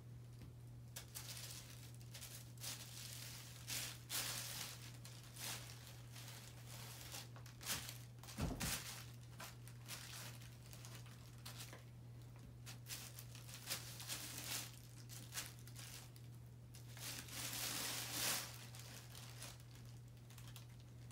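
Plastic shopping bags crinkling and rustling in irregular bursts as a cat paws and rolls on them, with a soft thump about halfway through and a longer stretch of crinkling near the end. A steady low hum sits underneath.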